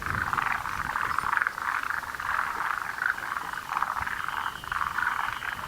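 A chorus of many frogs calling at once, forest green tree frogs and Japanese mountain brown frogs, their rattling pulsed calls overlapping with no break.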